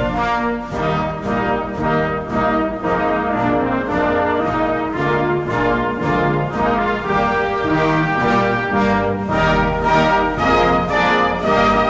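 Brass band music: slow, sustained chords that move on about every second.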